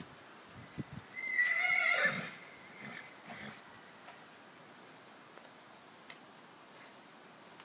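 A horse whinnies once, a wavering high neigh of about a second starting a little after a second in, over a few faint low thuds.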